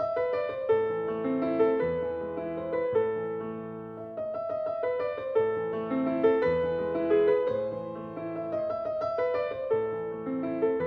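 Background piano music: a melody of struck notes over held low notes, running on without a break.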